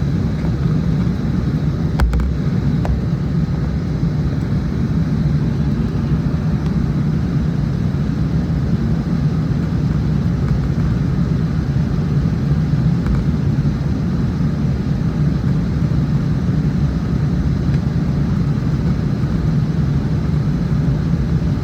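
Steady low drone of an airplane cabin in flight, the engines and rushing air holding an even level throughout, with a faint click about two seconds in.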